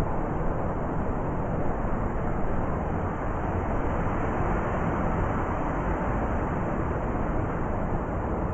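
Blizzard wind blowing steadily, a dense low noise with no separate events.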